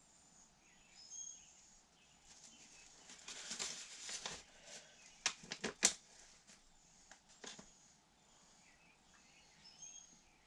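Bench handling noises: a stretch of rustling, then a quick run of sharp clicks about five to six seconds in. Faint bird chirps throughout.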